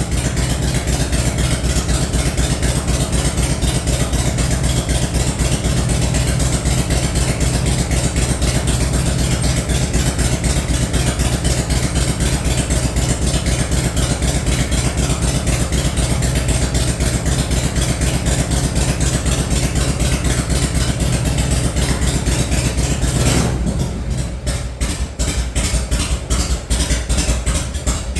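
Kickstart Harley-Davidson V-twin chopper engine running steadily at idle, just started after being hard to start. About three-quarters of the way through, the sound gets somewhat quieter and duller.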